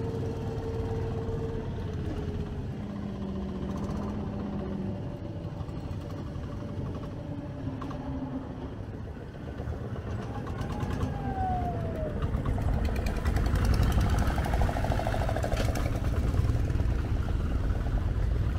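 Sea bus boat's engine running with a steady low rumble that grows louder about two-thirds of the way in.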